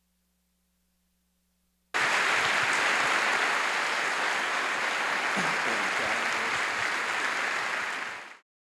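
Audience applauding. After a silent gap, the clapping starts abruptly about two seconds in and fades out near the end.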